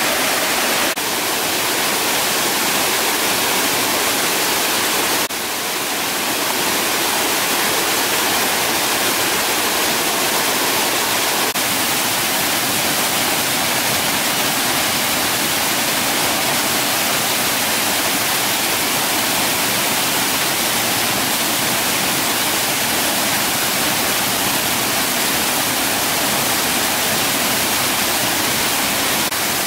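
Steady, even rushing noise, like falling water or heavy rain, with small jumps in level about 1 and 5 seconds in.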